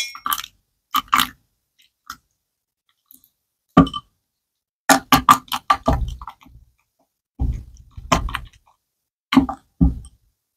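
Wooden spatula knocking and scraping against a glass bowl while stirring glitter, beads and liquid for slime: short clusters of taps and clinks with silent gaps between them.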